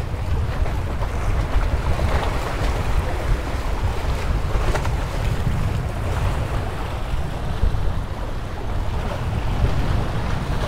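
Wind buffeting the microphone, with sea waves washing and splashing against the concrete tetrapods of a breakwater.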